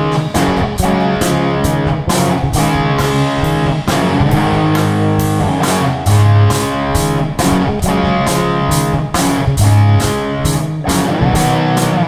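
Background music: a guitar-led track with a steady beat.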